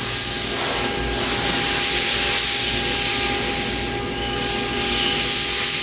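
A steady, loud hiss over a low machine hum with a few faint steady whining tones; the hiss swells about a second in and eases briefly near four seconds in.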